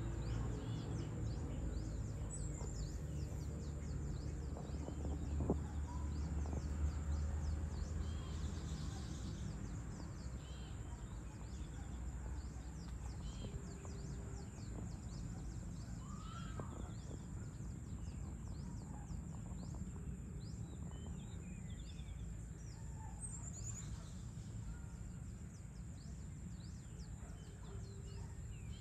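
Outdoor evening ambience: a steady low background rumble with scattered bird chirps and calls throughout, and a couple of small knocks about five and seven seconds in.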